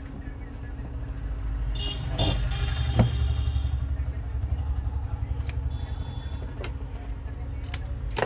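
Steady low engine rumble of a motor vehicle running nearby, with a handful of sharp clicks over it, the loudest about three seconds in.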